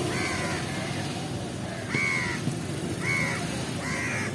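Crows cawing: four short, harsh caws at uneven intervals, over a steady low background rumble.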